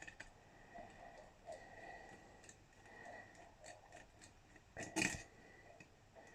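Faint scrapes and small clicks of a screwdriver working out the two small screws that hold the drive in a Daimler Majestic speedometer, with one louder click about five seconds in.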